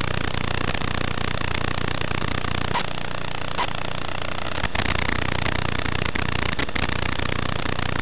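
Steady hiss with a low hum underneath, the static of an analog FPV video receiver's audio channel, with a few brief clicks about halfway through.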